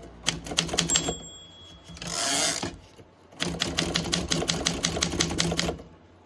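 Olympia SM7 manual typewriter's mechanism clicking in two quick runs of even strokes, about nine a second, as its keys are worked. A short rasping rush comes between the runs.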